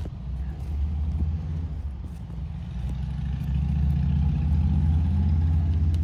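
An engine running low and steady in the background, growing louder over the second half, with a sharp click right at the start.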